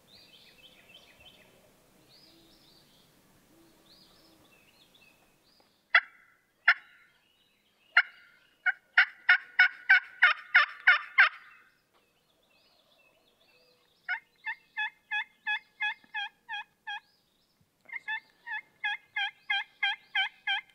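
A pot call worked with a wooden striker, giving loud hen-turkey yelps in several runs: two single notes, then a quick run of about eight, then two more steady runs at about three notes a second. Faint bird chirps sound in the first few seconds.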